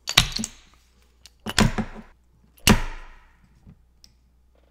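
A wooden spark plug puzzle, with its metal plug and rods inside, whacked sharply three times, each knock trailing off briefly. The whacks are meant to jolt loose a magnet-held piece that blocks one rod so the rod can slide out.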